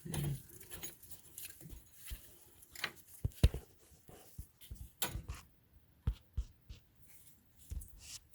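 Irregular metallic clicks and knocks from handling suspension parts and tools while a new tie rod is lined up on the steering knuckle, the sharpest knock about three and a half seconds in.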